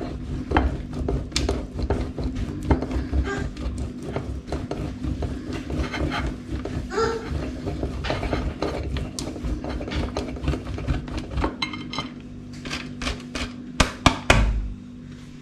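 Cheese being grated on a metal box grater over a plate: a run of quick, repeated scraping strokes, with a steady low hum underneath. Near the end come a few louder knocks.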